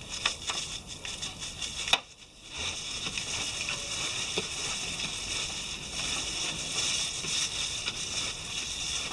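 Stiff chain brush scrubbing a motorcycle drive chain wet with degreaser: a steady scratchy hiss. It stops briefly about two seconds in, then carries on.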